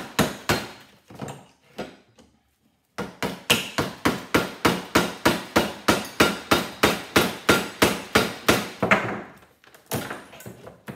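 Hammer blows on a flathead screwdriver driven in under an aluminum heat sink on a rubber-filled circuit board: sharp metallic strikes, a few irregular ones, a pause of about a second, then a steady run of about three blows a second that stops near the end, followed by a few lighter knocks.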